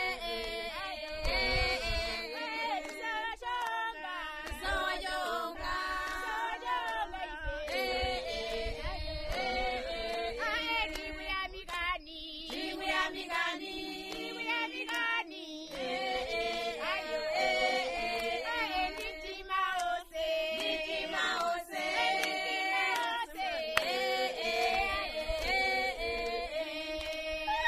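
A group of voices singing a song together, women's voices prominent, continuing through the whole stretch.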